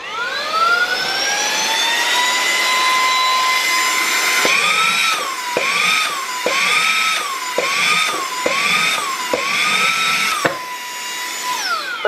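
Brushless handheld mini vacuum-blower switched on: its motor spins up to a high, steady whine. From about four seconds in, the pitch rises and falls six times, with a light knock at each dip, as the suction load changes while the nozzle grips a small box to lift it. The motor spins down near the end.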